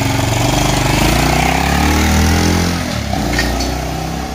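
Honda Cub-style underbone motorcycle pulling away: the engine revs climb steadily, drop briefly about three seconds in, climb again and fade as the bike rides off.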